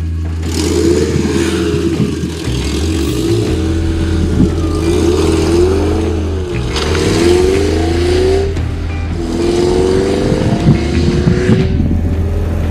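Gilbern T11 prototype's engine accelerating on the road, its pitch rising and dropping back again and again as it revs up and changes gear.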